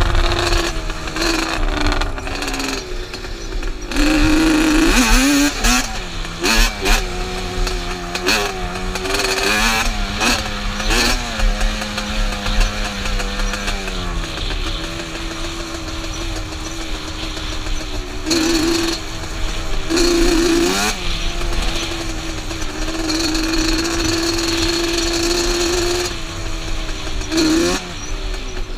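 Yamaha Banshee ATV's two-stroke twin engine running under load while riding. Its pitch climbs and drops again and again as the throttle is worked.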